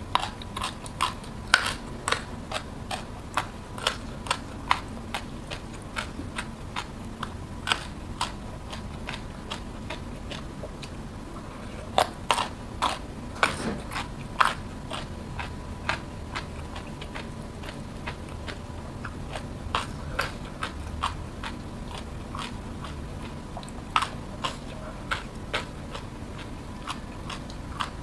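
Close-up crunching and chewing of raw jengkol: sharp, irregular crisp bites come in clusters, with softer chewing in between.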